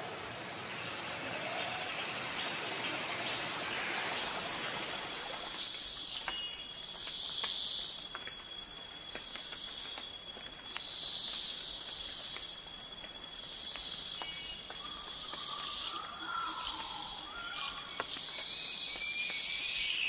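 Rushing water from a waterfall for about the first five seconds. It then gives way to tropical forest ambience: a steady high insect drone with repeated short chirping calls every second or two, and a few faint bird calls near the end.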